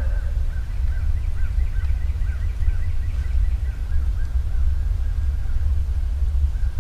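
Boosted field-recorder audio outdoors: a steady low rumble under a bird calling a quick series of short high notes, about two a second, that give way to a longer, steadier note.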